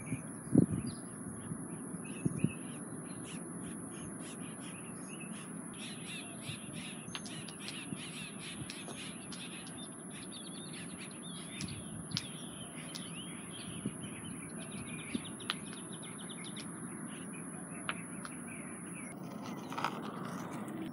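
Birds chirping and calling over a steady wash of outdoor noise, with a constant high-pitched hiss that cuts off near the end. A few sharp clicks, the loudest about half a second and two seconds in.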